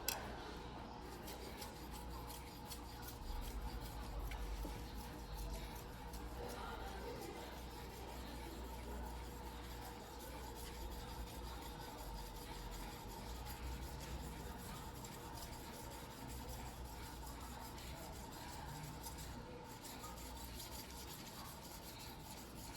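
A white #2 steel yanagiba blade being hand-sharpened on a wet whetstone, with steady, even scraping of steel on stone.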